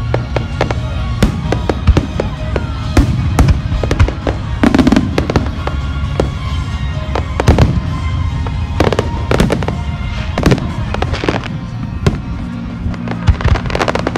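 Aerial fireworks shells bursting in quick, irregular succession: many sharp bangs and crackles, some close together, over a steady low rumble.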